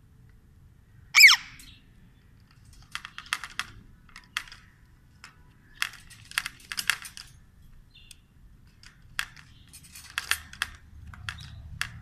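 A parakeet gives one loud, short squawk about a second in. After that come clusters of light clicks and rattles as a cat paws at the wire cage bars and the food dish inside.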